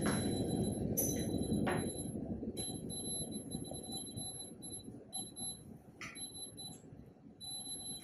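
Steady high-pitched electronic tone from operating-theatre equipment, sounding for a second or two at a time with short breaks, over a low hum of room noise. A few faint clicks come through about a second in and again near six seconds.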